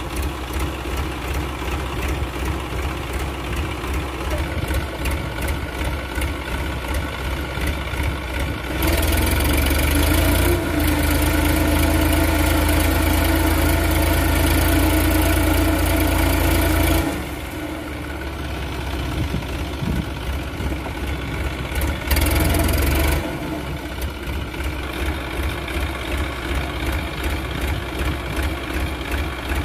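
Massey Ferguson 5245 DI tractor's three-cylinder diesel engine running with a steady low knocking beat, much louder for about eight seconds in the middle and again briefly near 22 seconds in, as it works against the deep mud that holds the tractor.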